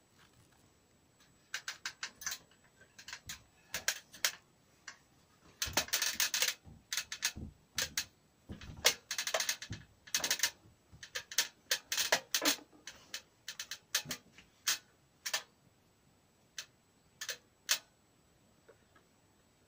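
Irregular sharp knocks and clicks of wood being handled and fitted, some in quick runs of several strikes, growing sparser near the end.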